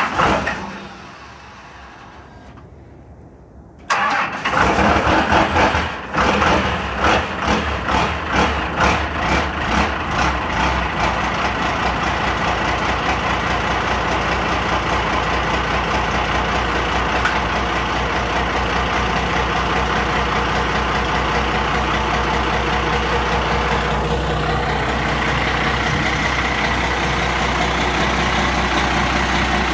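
12-valve Cummins inline-six diesel cold-starting at 19 degrees with no grid heater and no block heater: it catches about four seconds in, fires roughly and unevenly for several seconds, then settles into a steady idle.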